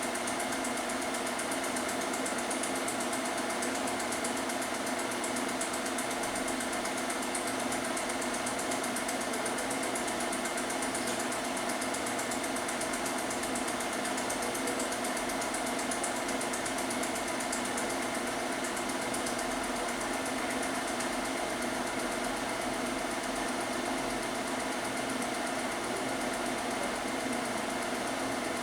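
Film projector running steadily, a constant mechanical whirr and clatter.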